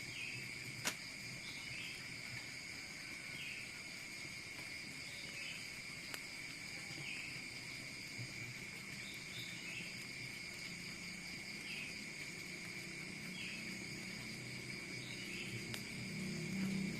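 Insects trilling in a steady high-pitched drone, with a short chirp repeating about every second and a half. A single sharp click comes about a second in.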